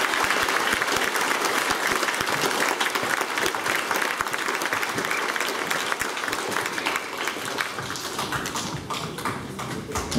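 A hall full of schoolchildren applauding: dense clapping at first, thinning to scattered separate claps and fading over the last few seconds.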